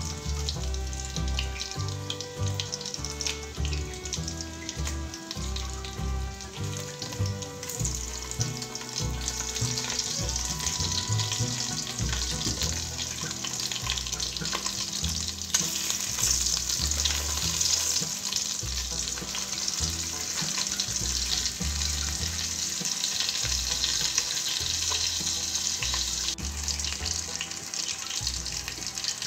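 Merguez sausages sizzling in a frying pan, the sizzle growing louder from about eight seconds in, over background music with low held notes.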